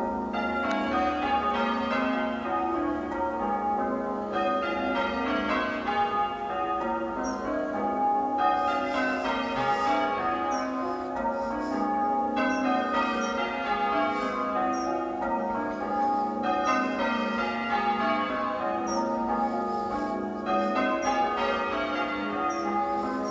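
Church bells change ringing: a peal in progress, the bells struck one after another in an unbroken run of changes, each stroke ringing on under the next.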